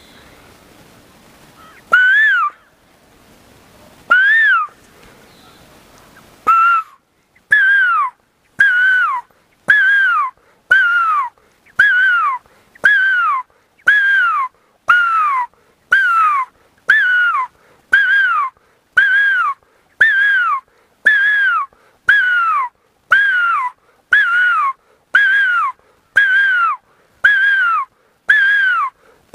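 A man whistling an imitation of the nyauli (great barbet) call. Two single notes come first; a few seconds in, a steady run of about one note a second begins, each note rising and then falling.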